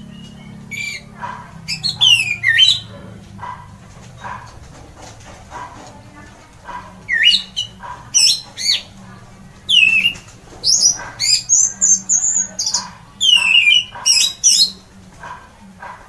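Orange-headed thrush (anis merah) singing loudly: quick runs of sweeping whistled phrases, a short burst about two seconds in and a longer, busier stretch from about seven seconds to near the end.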